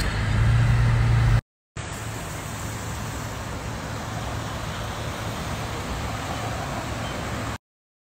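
Car cabin noise while driving in rain: a steady low engine and road hum that cuts off after about a second and a half. After a brief gap comes the steady roar of floodwater running down a wadi, which stops abruptly shortly before the end.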